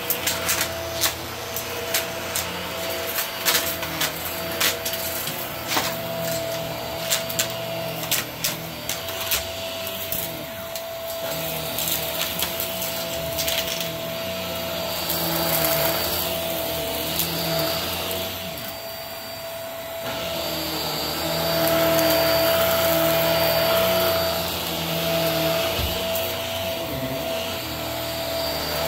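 Hart cordless stick vacuum running with a steady whine. Through roughly the first eight or nine seconds, many sharp clicks and crackles as debris is sucked up (the 'crunch'); after that the motor runs on with a smoother hiss that swells and eases as the head moves over the rug.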